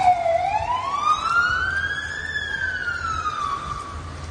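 Emergency vehicle siren wailing: one slow sweep that dips, rises in pitch and falls again, fading slightly, over a steady hiss of rain and water.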